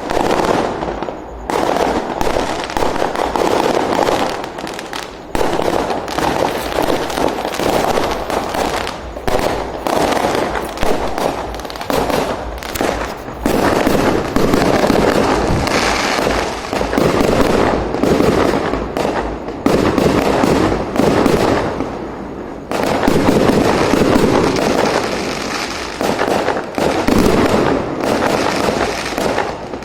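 Fireworks going off in a dense, continuous barrage of bangs and crackling, with a few brief lulls.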